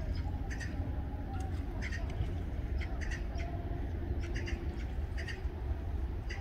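Eurasian coots giving short, sharp calls, often two notes at a time, about once a second, over a steady low rumble.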